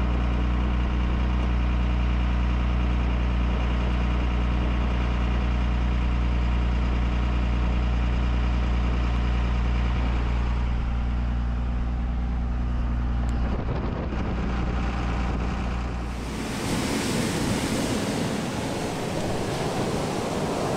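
Dodge Ram pickup's engine running steadily at an even pitch, heard from inside the cab while driving on sand. About thirteen seconds in the engine fades, and a few seconds later a loud, even rushing of breaking surf and wind takes over.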